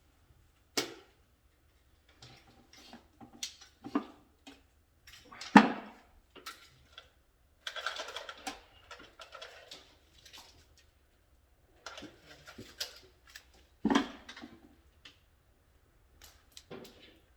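Intermittent clicks and knocks with short bursts of rustling, from hand work with tools and small parts during electrical wiring; the two sharpest knocks come about five and a half and fourteen seconds in.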